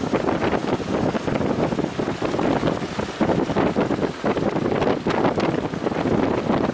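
Strong wind buffeting the microphone, a loud rumbling noise that rises and falls in quick gusts.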